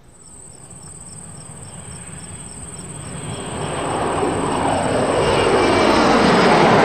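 Jet aircraft noise swelling from faint to loud over several seconds, its pitch falling slightly as it draws near, over a steady high insect chirring.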